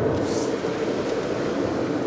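A car driving, heard from inside the cabin: steady road and tyre noise with engine hum, the tyres hissing on a rain-wet road.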